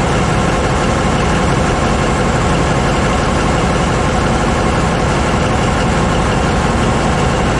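Caterpillar 793B haul truck's 3516 V16 diesel engine idling, loud and steady.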